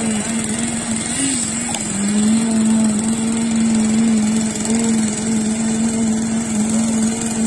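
Small single-cylinder engine of a machine on a freshly poured concrete slab, running steadily at constant speed; its pitch wavers briefly a couple of times.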